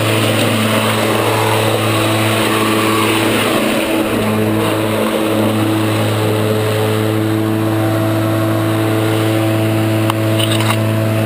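Worx 56-volt cordless electric lawn mower running while cutting grass: a steady hum from the motor and blade over a wash of cutting noise, dipping briefly about four seconds in.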